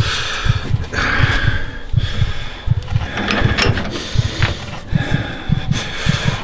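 Metal mechanism ratcheting and clattering in bursts over a low, steady pulse of about three to four beats a second.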